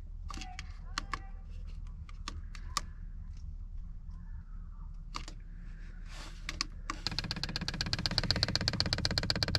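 A few scattered clicks, then about seven seconds in the fuel dosing pump of a Vevor 5 kW diesel heater starts ticking rapidly and steadily as it primes the fuel line.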